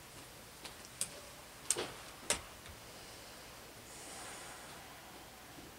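Handling noise: a few sharp clicks and knocks from a handheld microphone being set down and a small digital recorder being handled, then a soft rustle about four seconds in.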